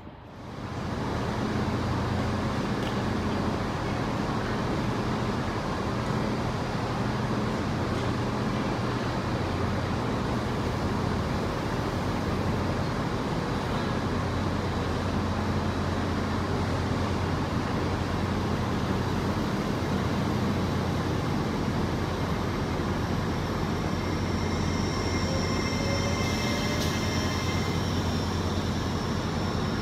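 A train running steadily close by: a low engine drone over a rumble of rail noise that holds at one level throughout, with faint high squeals near the end.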